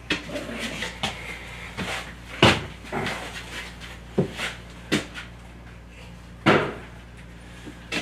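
Irregular knocks and bumps, about eight of them, the loudest about two and a half and six and a half seconds in, over a steady low hum.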